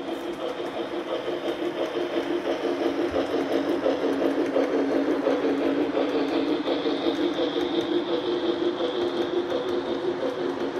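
A model freight train rolling past on three-rail track, with a steady fluttering rumble of metal wheels and cars. A higher steady whine joins about six seconds in as the model Santa Fe 5011-class steam locomotive comes by.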